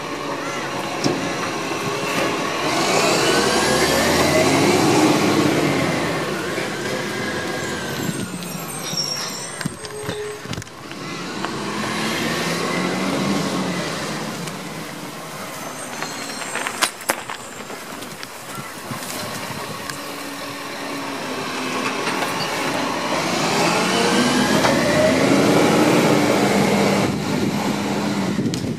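Side-loading garbage truck at work: its engine revs up and down three times, a rising and falling whine each time, as the hydraulic arm lifts and tips bins, with short air-brake hisses between stops.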